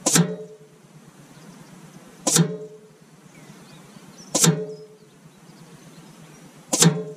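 Four .177 air rifle pellets striking a paper target card on its board, each a sharp smack with a short ring, about two seconds apart.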